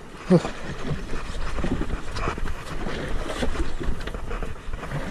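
Wind buffeting the microphone over the sound of the sea against a small boat, with one short cry about a third of a second in.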